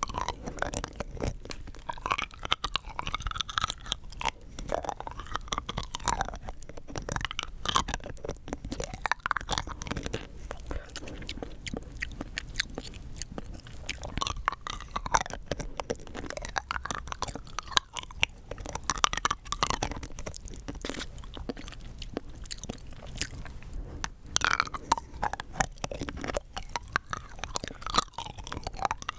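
Rock candy being chewed and crunched close to the microphone: a steady run of crackling crunches as the hard sugar crystals break between the teeth.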